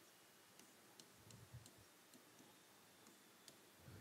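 Near silence with a few faint, irregular ticks of a stylus tapping on a touchscreen whiteboard as a word is written.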